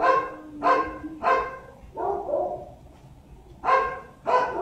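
A dog barking repeatedly, short sharp barks about every half second, with a pause of about a second past the middle.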